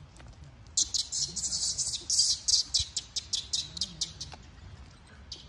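A bird chirping in a rapid run, about six short high-pitched chirps a second. It starts about a second in and fades out near the end.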